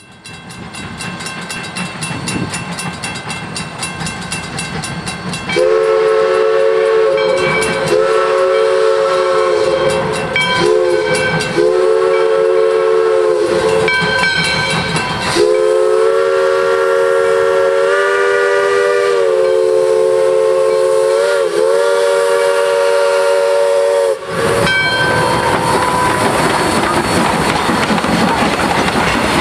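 Steam locomotive No. 110's three-chime whistle blowing the grade-crossing signal of long, long, short, long, then one long wavering blast, over a steadily ringing bell. Near the end the locomotive passes close by, with the noise of its exhaust and wheels on the rails.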